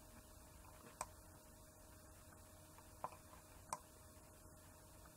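Near silence with a few faint computer keyboard and mouse clicks: one about a second in and two more a little after three seconds in.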